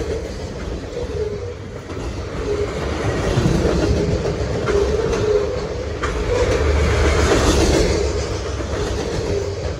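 Freight train cars carrying open-top containers rolling past close by. Their steel wheels make a steady rumble on the rails, with a wavering ring and a few scattered clicks.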